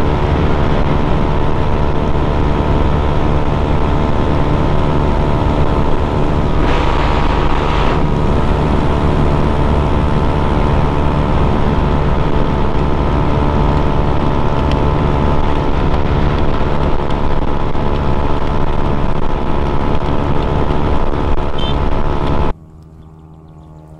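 Honda Click 125 scooter's single-cylinder engine running at a steady pitch at full speed, with wind rushing over the microphone; a brief louder rush of wind about seven seconds in. Near the end the sound drops off suddenly to a much fainter engine sound.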